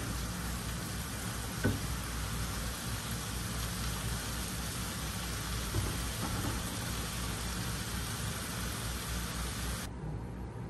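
Meat and vegetables sizzling in a frying pan while a spatula stirs them, with a few sharp knocks of the spatula against the pan. The sizzle cuts off suddenly near the end.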